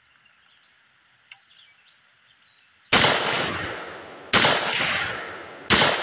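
Three shots from an AR-15-style rifle, about a second and a half apart, starting about three seconds in, each trailing off in a long echo.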